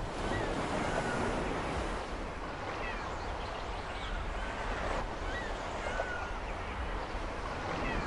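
Steady wash of open harbor water and wind, with a few faint high chirps over it.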